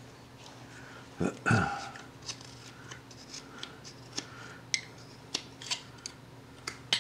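Carving knife making short slicing cuts in wood, about a dozen crisp scraping strokes spaced irregularly, as it shaves router marks off a roughed-out carving. A brief low murmur from a voice comes about a second and a half in.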